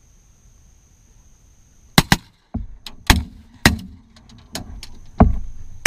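A quick volley of shotgun shots from two hunters firing at a passing teal, starting about two seconds in with a pair close together and several more following over the next few seconds.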